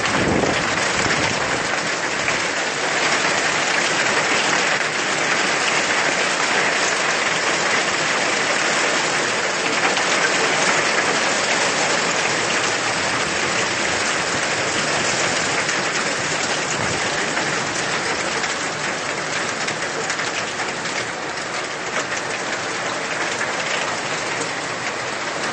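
Heavy rain pouring down steadily onto a flooded street, easing slightly near the end.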